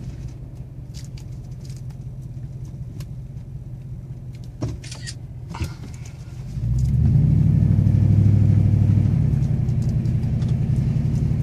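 Low, steady engine and road rumble of a car heard from inside its cabin while driving slowly. It grows clearly louder about six and a half seconds in, with a few light clicks shortly before.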